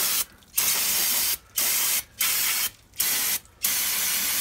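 Aerosol brake cleaner hissing out through a straw nozzle in about six short bursts, each lasting up to about a second, as it washes grease off the drum-brake shoes and front spindle.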